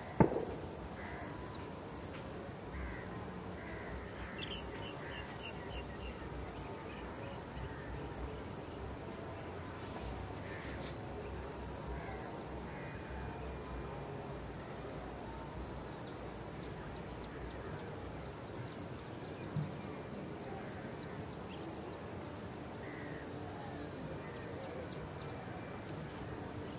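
Wild riverside ambience: scattered bird calls, including a rapid trill, over a steady hiss, with a high insect whine that stops and starts every few seconds. A sharp thump sounds just after the start.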